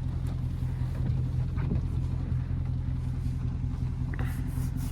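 Dodge Charger Scat Pack's 392 (6.4-litre HEMI) V8 running steadily at low revs: a low, even drone with no revving.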